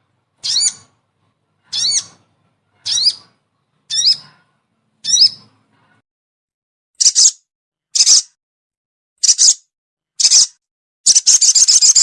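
Sogon bird lure calls. A rising, upward-sweeping call repeats about once a second five times. After a short pause come four short harsh calls, and about eleven seconds in a fast chattering run of notes.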